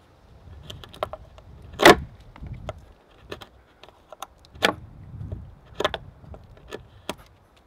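Knife blade cutting into a weathered log, a series of short sharp snaps of wood under the blade, the loudest about two seconds in.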